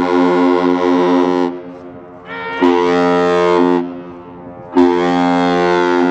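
Horn of the Great Lakes freighter Paul Tregurtha sounding a salute to the people on the pier. Loud, deep blasts: one stops about a second and a half in, then two more of a little over a second each follow, with short gaps between.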